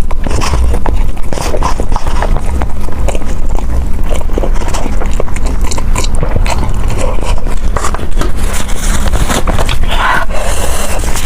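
Close-miked eating: chewing and biting food, with many small wet clicks over a steady low rumble.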